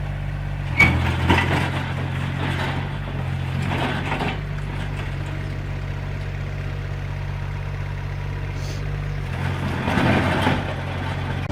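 A heavy construction machine's engine running steadily, with short louder noisy clatters about a second in, around four seconds in and again near the end.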